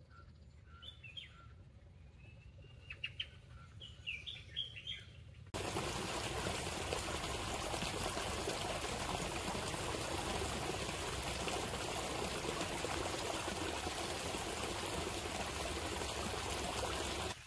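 A few birds chirping quietly, then, with a sudden switch about five seconds in, a steady, even rush of running water.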